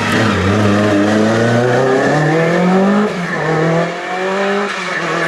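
Classic rally car engine at full throttle accelerating out of a hairpin: the pitch climbs steadily, drops at an upshift about three seconds in, then climbs again before a second upshift near the end.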